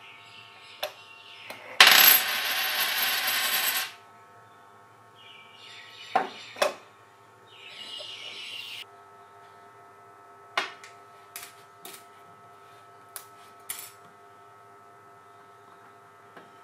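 A coin drops through the trap-door flap of a homemade PVC coin box with a sharp click and clatters and rattles inside the plastic tube for about two seconds. After it, a few light clicks and brief scrapes of the plastic flap being handled.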